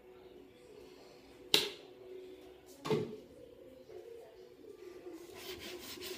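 Two sharp knocks of kitchen things being set down out of sight, the first about a second and a half in and the loudest, the second about a second later. Near the end comes a quick run of light scrapes and taps as hands grip the aluminium cake pan on the tablecloth, all over a low steady hum.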